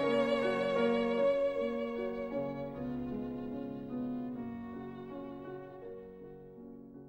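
Background music led by a violin, fading out steadily toward the end.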